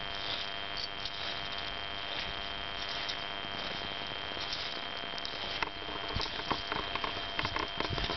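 Footsteps and ski-pole plants crunching in snow: irregular crunches that come thicker and louder from about five and a half seconds in, over a steady hiss with a faint high whine.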